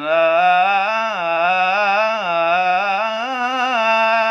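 A young man's unaccompanied voice chanting an Islamic ibtihal, holding one long ornamented melisma on a single syllable without a break. The pitch wavers up and down in turns and climbs a little in the second half.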